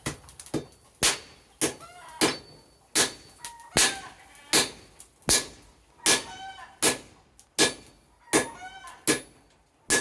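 Hammer blows on hot iron at the anvil in a steady rhythm, about one strike every three-quarters of a second, each with a metallic ring. Short wavering pitched sounds come between some of the blows.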